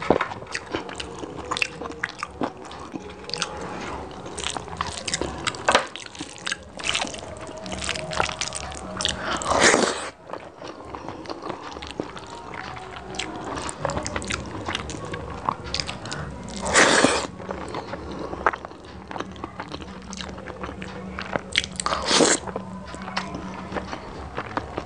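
Close-miked eating with the hand: fingers squishing and mixing curry into rice and pulling at chicken and mutton on a plate, with chewing and wet mouth sounds. A few louder, longer sounds come about ten, seventeen and twenty-two seconds in.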